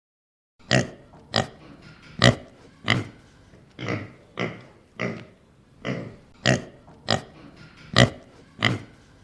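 Domestic pig grunting and oinking: about a dozen short grunts in a row, roughly one every two-thirds of a second, starting about half a second in.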